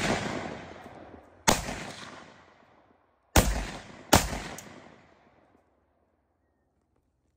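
Three single shots from an AK-47-pattern rifle, the first alone and the last two less than a second apart, each trailing off in a long echo. None sets off the tannerite target: there is no explosion.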